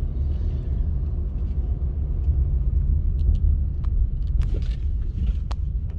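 Car driving, heard from the cabin: a steady low rumble of engine and road noise, with a few light clicks about halfway through.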